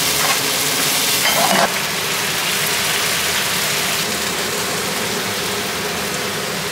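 Ramen noodles sizzling in a hot pan of garlic olive oil and starchy pasta water as the sauce reduces and thickens: a steady hiss that steps down slightly about a second and a half in.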